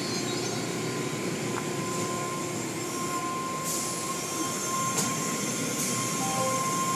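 Automatic tunnel car wash running: water spray and wash equipment make a steady rushing noise with a thin steady whine over it, and sharper hisses of spray come a few times.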